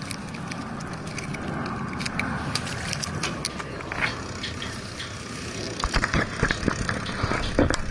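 Wind rushing over an outdoor camera microphone, with scattered sharp knocks and clatter from handling on a fishing boat, densest in the last two seconds.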